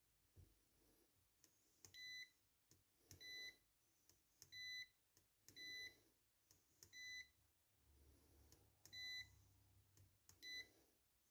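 Maxwell MP-25703 digital multimeter's buzzer sounding seven short, high beeps roughly a second apart, with faint clicks between them.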